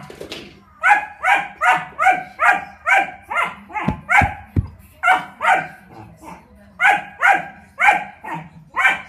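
German Shepherd puppy barking repeatedly in short, high barks, about two to three a second, with a brief pause about six seconds in. A couple of dull knocks come about four seconds in.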